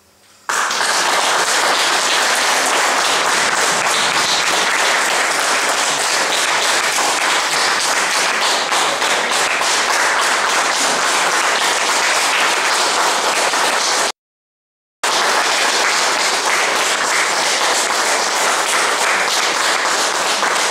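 Audience applauding: dense, steady clapping that starts about half a second in. The sound cuts out completely for under a second about two-thirds of the way through.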